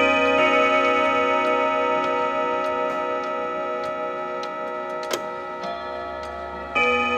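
A French Jura clock chiming on its eight brass gong rods, struck by the hammers. Several notes ring together at the start and hang and slowly fade, and a new strike comes near the end, over the steady ticking of the movement. A single sharp click sounds a little after five seconds in.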